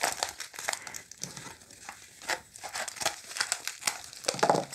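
Paper wrapping of a mailing package crinkling and tearing as hands pull it open, in irregular crackles.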